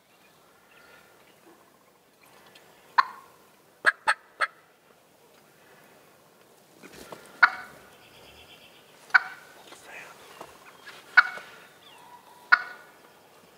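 Eastern wild turkey gobbler gobbling. There are loud, short calls: one, then a quick run of three around four seconds in, then four more spaced about two seconds apart.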